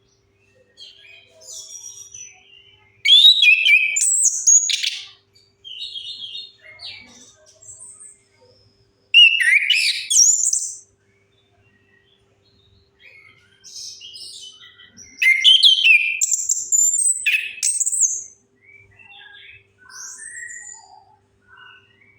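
Chestnut-capped thrush (anis kembang) singing, played as a lure recording to coax a silent thrush into song. Three loud, rich, fast-varying high phrases, each about two seconds long, come with softer twittering notes in between.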